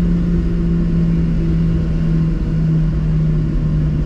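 Boeing 737 airliner taxiing after landing, heard inside the cabin: a steady jet-engine hum over a low rumble. The hum's pitch steps down slightly about halfway through.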